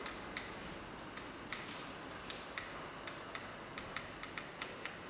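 A run of sharp, irregular clicks over a faint hiss, coming closer together in the second half.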